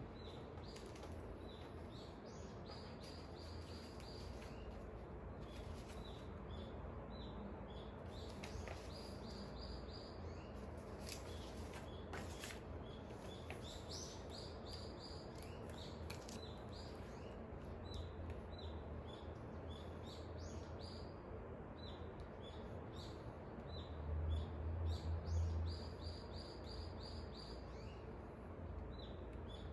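Dawn birdsong: small birds chirping, with repeated quick trilled runs of high notes, over a low rumble of wind that swells for a couple of seconds near the end.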